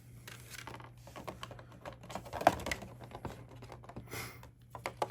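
Handling noise from trading cards and their packaging: a quick run of light clicks and rustles, with one louder knock about halfway through.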